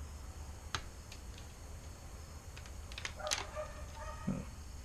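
Black hexagonal grill mesh being handled by hand, giving one sharp click a little under a second in and a few fainter clicks after it. A short pitched squeak-like sound comes just past the middle, over a steady low hum.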